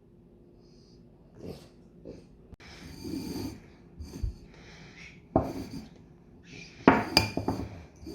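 French bulldog snorting and sniffing in irregular bursts, loudest near the end, with a few sharp knocks among them.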